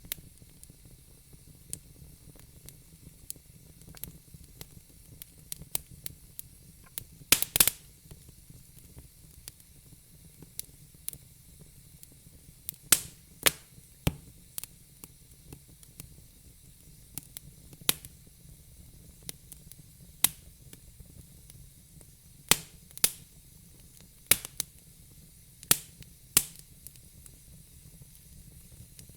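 Fire crackling: irregular sharp pops and snaps over a faint steady hiss, with a quick cluster of loud pops about seven seconds in and several more strong snaps in the second half.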